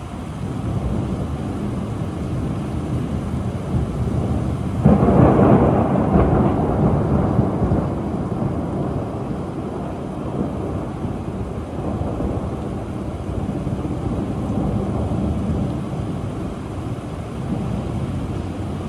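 Thunderstorm: rain with rumbling thunder. About five seconds in comes a sudden loud peal, followed by a long low rumble that slowly fades, with smaller swells of rumbling later.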